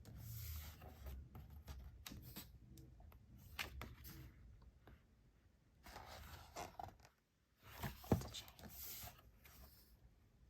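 Glossy photo book pages being turned and handled: soft paper swishes and slides with light taps, the loudest swish and tap about eight seconds in.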